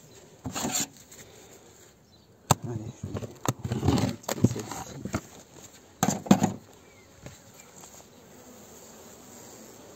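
Beehive parts being handled, several sharp knocks and scraping bursts of wood and metal as a hive is worked open, over a faint buzz of honeybees.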